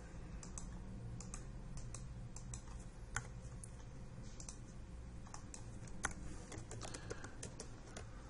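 Typing on a computer keyboard: irregular key clicks, with a few sharper strokes about three and six seconds in.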